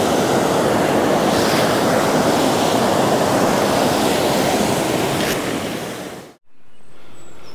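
A stream rushing and splashing over rocks, a steady loud wash of water noise that cuts off suddenly about six seconds in. It gives way to much quieter outdoor sound with a faint high chirp near the end.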